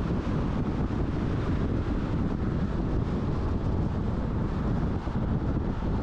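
Steady wind noise buffeting the microphone of a camera in a moving car, a low rumble with road noise underneath.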